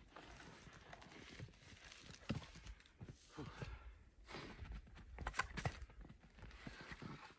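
Scattered wooden knocks and clatter as split firewood is handled and a log is stood upright on a chopping block, with a short cluster of sharp knocks about five and a half seconds in. Footsteps in snow come in between.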